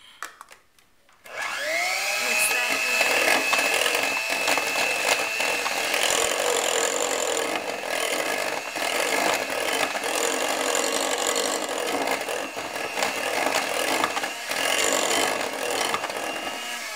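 Electric hand mixer switched on about a second in, its motor whine rising to speed and then running steadily as the beaters whip an egg into creamed butter in a glass bowl.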